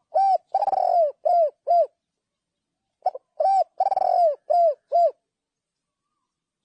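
Spotted dove cooing: two phrases of about five coos each, the middle coo of each phrase longer than the rest, the phrases about three seconds apart.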